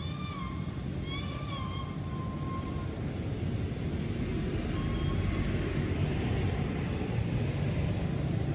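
Steady low rumble of road traffic, growing louder about halfway, with a few short, warbling, whistle-like high calls in the first three seconds and one more about five seconds in.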